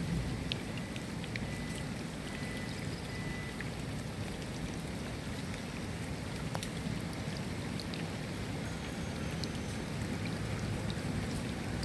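Steady rain falling, with individual drops ticking sharply here and there over an even hiss.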